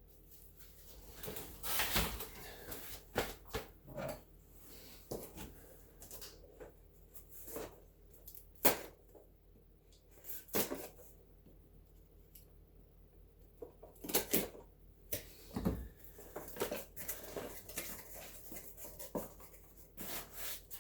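Packaging and small items being handled by hand: irregular rustling and crinkling with light knocks and taps, the loudest bursts about 2 s, 9 s and 14–16 s in.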